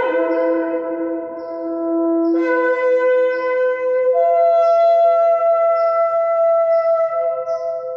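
Ram's-horn shofar blasts: several long, steady horn tones overlapping one another, with new blasts coming in about two and a half and four seconds in, thinning out near the end.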